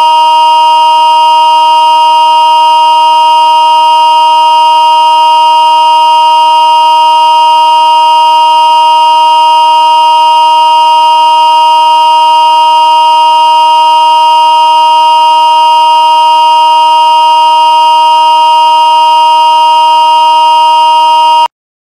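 A loud, steady electronic tone at one unchanging pitch that cuts off suddenly near the end.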